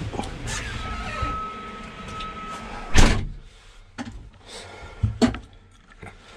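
A tractor cab door slammed shut about three seconds in, the loudest sound here, with lighter clicks and knocks of the cab fittings after it. A steady high tone sounds until the door closes.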